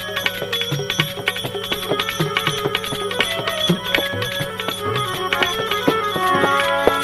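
Instrumental interlude of a Gujarati devotional bhajan: a sustained melodic instrument playing a melody over a steady drone, with hand-drum and small percussion strokes keeping time.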